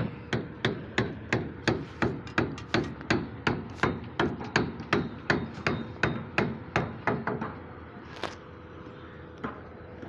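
A long steel pipe struck down again and again against the formwork, in even hammer-like blows at about three a second. The blows stop after some seven seconds, and one sharper crack follows a moment later.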